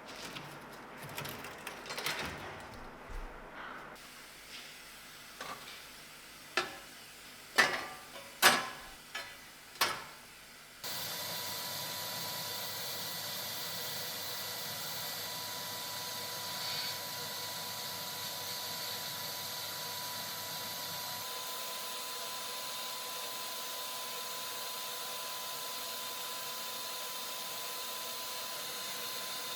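A run of sharp clicks and knocks from handling parts and tools, the loudest five coming between about six and ten seconds in. About eleven seconds in, a steady hissing, whirring machine noise from a workshop tool starts suddenly and runs on evenly.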